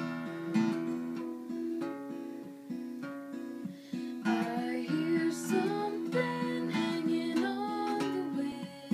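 Steel-string acoustic guitar playing chords, with the notes ringing on into one another and a steady rhythm of new notes.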